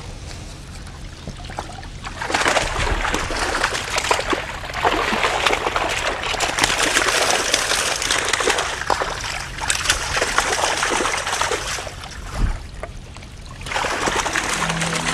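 Water splashing and pouring out of a mesh keepnet full of fish as it is hauled up out of the river. It comes in two spells: from about two seconds in until about twelve, then again near the end.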